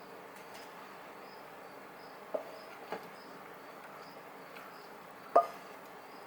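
Insect chirping steadily at about two chirps a second, with three short knocks a little past two seconds, near three seconds, and a louder one a little past five seconds.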